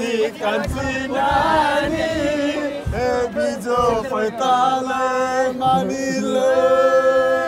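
A group of voices singing together in a chant-like song, ending in a long held note. A couple of dull low thumps come about a second in and again about three seconds in.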